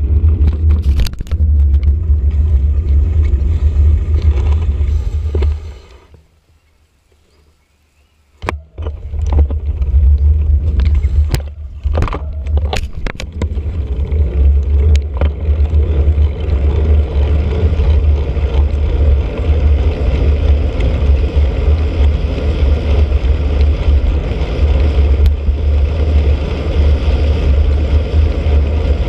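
Heavy low wind rumble and ride vibration on a bicycle-mounted action camera while riding along a wet park path. It drops away almost to silence for a couple of seconds about six seconds in, then comes back with a few sharp knocks before settling into the steady rumble again.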